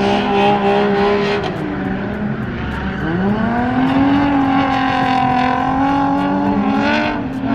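Drift car's engine held at high revs through a slide. The note drops off about two seconds in, then climbs back and holds a steady high pitch, dipping again near the end.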